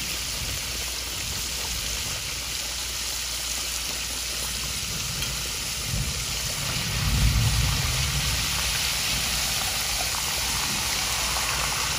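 Whole flounder deep frying in a pot of hot vegetable oil, the oil bubbling and sizzling steadily. A low rumble comes in about six seconds in and lasts a couple of seconds.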